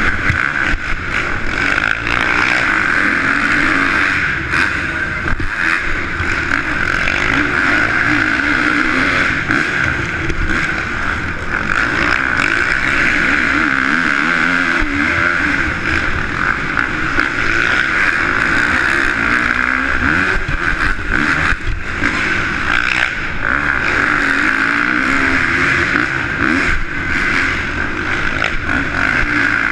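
Dirt bike engine heard from the rider's helmet camera, revving up and down with the throttle through the turns and straights of a race, over a steady hiss.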